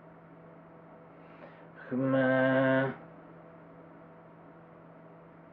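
A man's voice holding one steady vowel for about a second, sounding out a cat 'word' in imitation of a cat's call.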